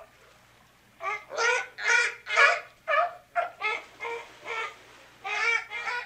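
Several sea lions barking in a rapid series of about a dozen short barks, starting about a second in.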